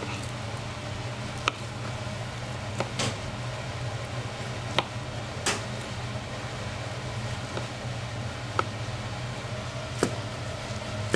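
A kitchen knife blade tapping a plastic cutting board as it slices through cooked meat, liver and sundae. The sharp taps come singly every second or so, over a steady low machine hum.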